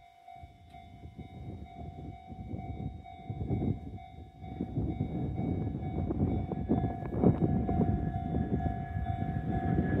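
Freight train hauled by an EF210 electric locomotive approaching a level crossing, its rumble on the rails growing steadily louder. Over it, the crossing's warning bell gives a steady ringing tone.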